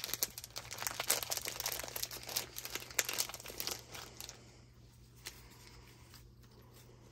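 Packaging crinkling as it is handled and opened, a quick run of small crackles that dies down about four seconds in, followed by a soft click or two.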